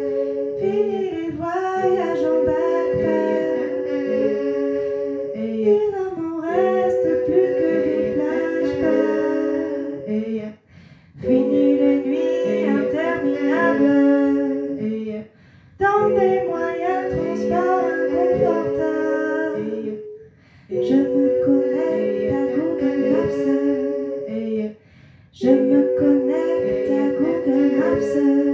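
A woman singing a French song over a backing of held chords and a steady pulsing beat. The phrases run about five seconds each, with short breaks between them.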